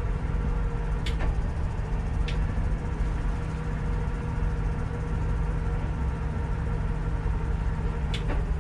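The Sea Ray's Mercruiser 7.4 V8 inboard engine idling with a steady low rumble, heard from the helm. A few sharp clicks come about a second in, about two seconds in and near the end.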